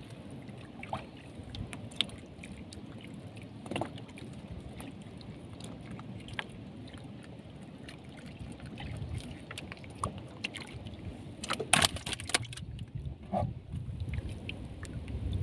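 Longline being hauled by hand over a small fishing boat's gunwale: a low steady rumble with scattered knocks and clicks, and a quick cluster of rattling clicks a little before the end.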